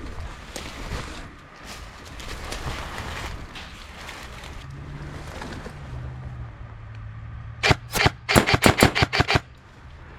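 Airsoft gun firing a quick string of about a dozen shots in under two seconds near the end.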